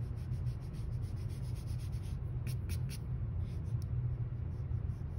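Rubber eraser rubbing back and forth on pencil-shaded drawing paper in quick, soft, repeated strokes, cleaning up graphite, over a steady low hum.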